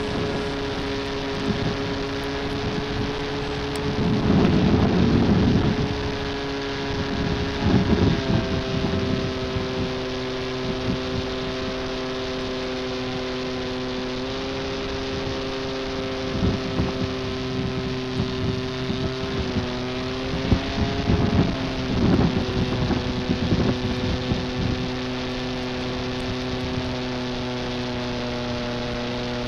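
Electric brushless outrunner motor and propeller of a foam RC aerobatic plane whining steadily, heard from a camera on board. The pitch shifts a few times as the throttle changes, with gusts of wind rushing over the microphone in between, heaviest about four to six seconds in and again past the twenty-second mark.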